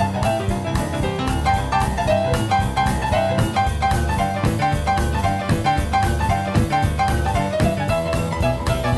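Jazzy background music with piano over a steady drum beat.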